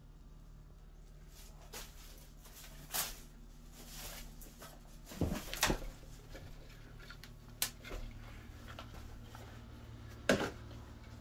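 Several separate sharp knocks and clatters, the loudest about ten seconds in, from a reptile enclosure's fittings and sliding glass door being handled, over a low steady hum.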